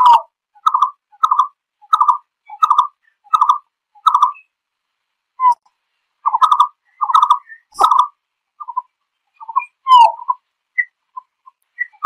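Malkoha (Vietnamese chim phướn) calling to its flock: a regular series of short call notes, about three every two seconds. The notes break off about four seconds in, start again a couple of seconds later, then turn into softer, scattered notes.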